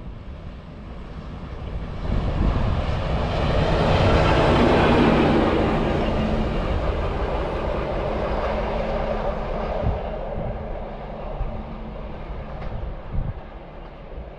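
A single locomotive passes at speed, rising to its loudest about four to five seconds in and then fading as it runs away down the line. Wind buffets the microphone throughout.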